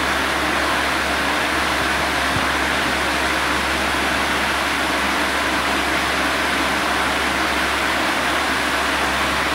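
Steady, even rushing noise with a low hum underneath, unchanging throughout, like a fan or air conditioner running.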